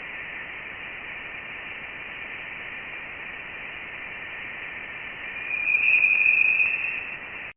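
NASA's sonified recording of interstellar space: a steady radio-like hiss with a band of faint high tones, swelling louder with a brighter high tone for about two seconds near the end, then cutting off abruptly.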